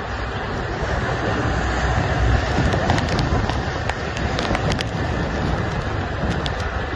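Strong wind buffeting the microphone on a fishing boat's open deck in heavy seas, over a low steady rumble and the rush of breaking waves. A few faint sharp ticks come through in the middle.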